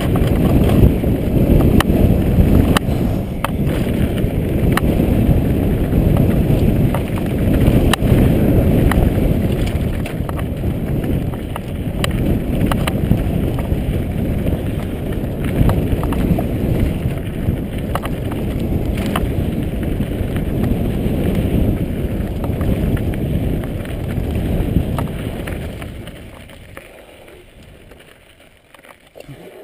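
Mountain bike riding a rocky dirt trail, heard from a handlebar-mounted camera: wind and tyre noise rushing over the microphone, with frequent sharp clicks and rattles from stones and the bike. The noise dies down steeply near the end.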